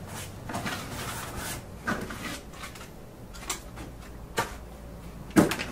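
Quiet handling noises: faint rustling, then a few short knocks or clicks about a second apart, the loudest near the end.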